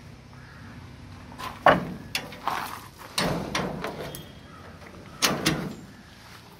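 Metal mesh pet cage's door and latch rattling and clanking as a hand works them: a string of sharp knocks, the loudest about a second and a half in, with more up to about four and a half seconds and another group about five seconds in.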